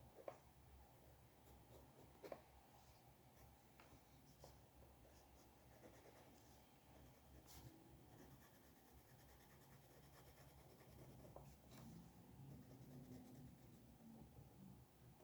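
Faint scratching of a drawing tool on paper, in short strokes, with two light taps near the start.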